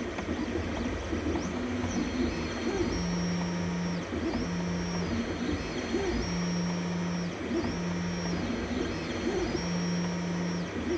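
Anycubic Chiron 3D printer running: its stepper motors whine in steady tones about a second at a time, rising and falling at the start and end of each move, with short pauses between moves, over a steady low background noise.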